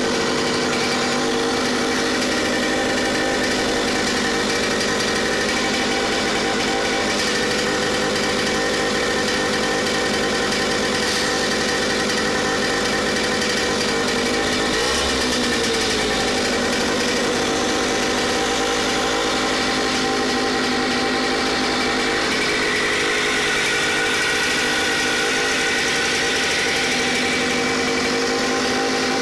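Yamaha 5 hp air-cooled outboard motor running steadily out of water on a test stand.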